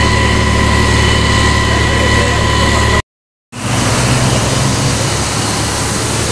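Pump engine running steadily with a constant high whine. After a sudden half-second break, a steady rushing hiss of water jetting from a fire hose, over a low engine hum.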